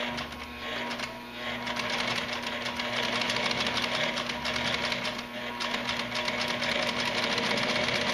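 Industrial walking-foot sewing machine with a DC servo motor stitching through leather: a fast, even run of needle strokes that gets louder and quicker about a second and a half in as the motor's speed regulator is turned up.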